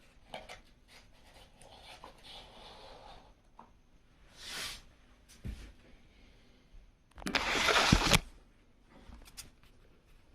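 Rustling and scraping of things being handled, with a louder rasping sound about a second long a little past the middle.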